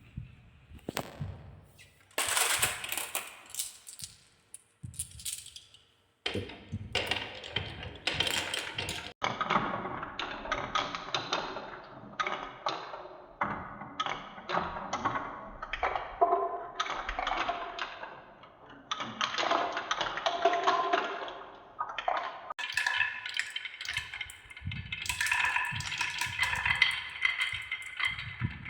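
Marbles rolling and clattering down wooden marble-run tracks: a dense run of clicks and knocks that breaks off abruptly several times. Ringing tones sound over the clatter near the end.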